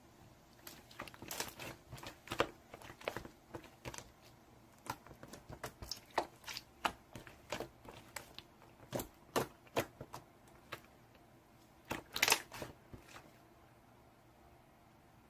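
Irregular crinkling and clicking sounds, several a second in uneven clusters, loudest about twelve seconds in, then stopping near the end.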